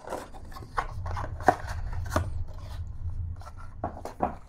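Paper leaflets and cardboard packaging being handled: rustling and scraping with several sharp taps and clicks, over a low rumble from about a second in until near the end.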